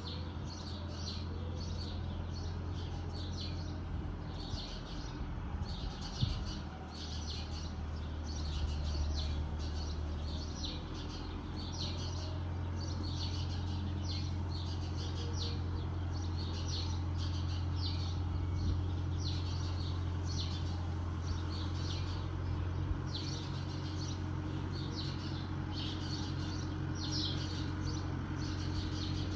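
Steady low drone of a distant tractor engine running at working speed, with a bird chirping over it in short calls repeated a bit more than once a second.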